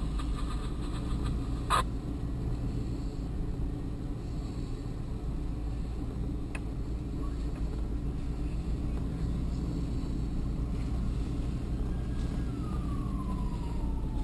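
Vehicle engine running steadily, heard from inside the cab while driving, with one sharp click about two seconds in. Near the end an emergency vehicle's siren wails, its pitch sliding down.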